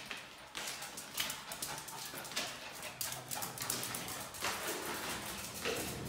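Footsteps of a person and a small dog climbing granite stairs, a short scuff with each step, roughly one a second.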